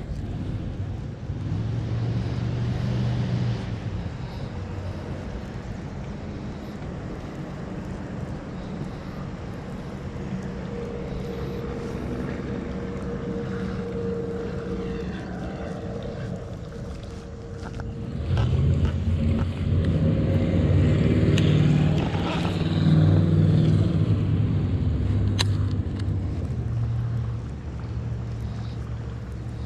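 Road traffic crossing a bridge overhead, a steady hum, with a louder vehicle going by about two-thirds of the way through.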